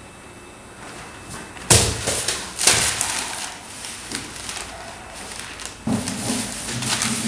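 A sudden thump, then irregular rustling and crackling of newspaper sheets being handled on a floor, in uneven bursts.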